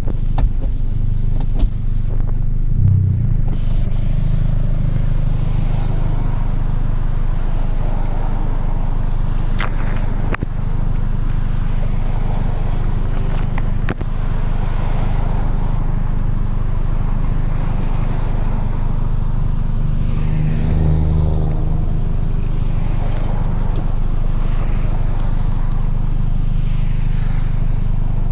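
Straight-piped Audi TT 180's 1.8-litre turbocharged four-cylinder engine running steadily, briefly swelling twice, on a car with vacuum leaks.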